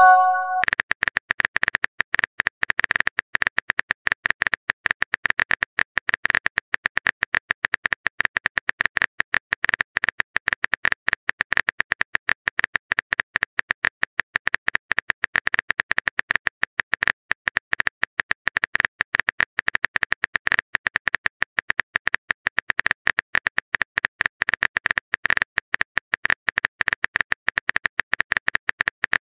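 Texting-app keyboard typing sound effect: a fast, unbroken run of small clicks while the next long message is being typed, with a short message-sent chime at the very start.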